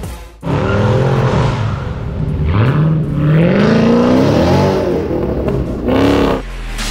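A car engine revving hard as the car accelerates away, its pitch climbing and falling through several pulls, with one long rising pull in the middle.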